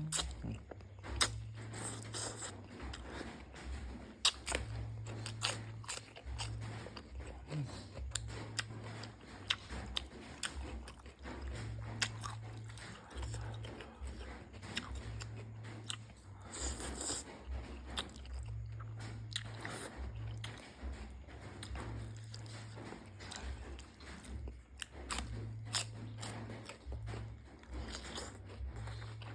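A person eating close to the microphone: chewing and biting, with crunching and many short sharp clicks throughout.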